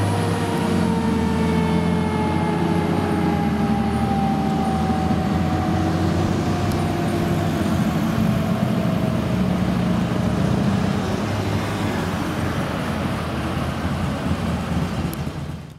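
A fire engine's siren winding down, its wail falling slowly in pitch and fading over several seconds, over the steady rumble of the truck's engine and passing traffic including a motorcycle. The sound cuts off suddenly near the end.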